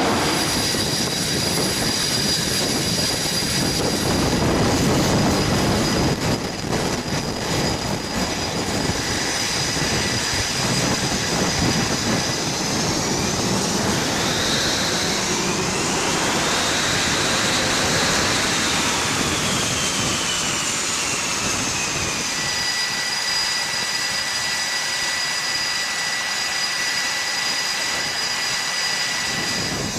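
F/A-18 jet engines running on a carrier flight deck: a loud roar at first, then a high turbine whine that rises in pitch about halfway through, falls away, and settles into a steady whine.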